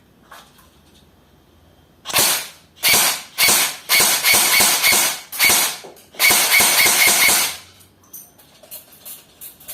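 A 6 mm airsoft rifle firing: from about two seconds in, a string of short rapid bursts, then one longer burst of over a second that stops abruptly. A few faint clicks follow.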